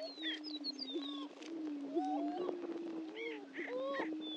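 Greater prairie-chickens booming on a lek: a continuous low, hollow hooting drone from several males, with rising whooping calls over it. Thin, high, falling whistles come in several times.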